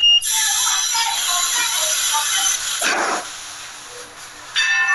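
Inside a Hong Kong Light Rail car at a stop. The door warning tone cuts off just at the start and a loud hiss follows for about two and a half seconds as the doors close. A short heavy rumble comes about three seconds in, then quieter running noise as the car moves off.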